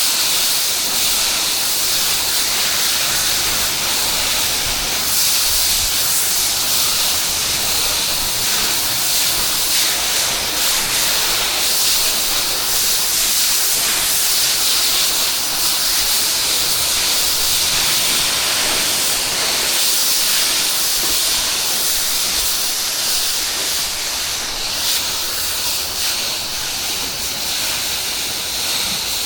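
Steady hiss of water spraying from a pressure-washer wand onto the house.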